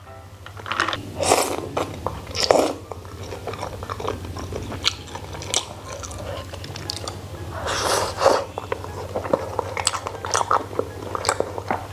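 Close-miked eating sounds: sips through a straw, slurping and chewing of hot pot noodles and tripe, with short clicks of chopsticks against the bowl. The loudest swells of sipping and slurping come near the start, about two and a half seconds in and about eight seconds in.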